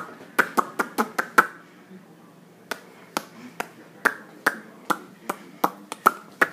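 A run of sharp pops: six in quick succession in the first second and a half, then after a short pause a steady string of single pops about every half second.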